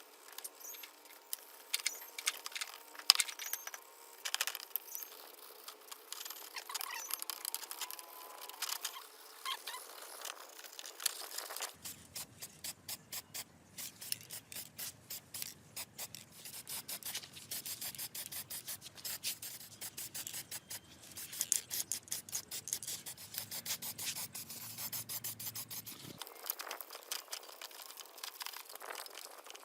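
Hand rubbing and scraping, with scattered clicks and taps in the first half, then a long run of quick, regular strokes that stops a few seconds before the end.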